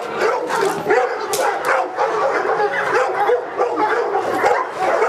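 Dogs barking in a rapid, unbroken string of barks and yelps, several a second.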